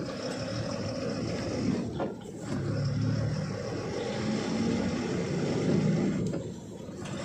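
Truck engine running on the move, heard from inside the cab, with a steady low rumble that dips briefly twice.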